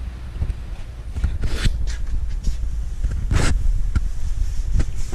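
A few short scrapes and rustles of handling close to the microphone, the loudest about three and a half seconds in, over a steady low rumble.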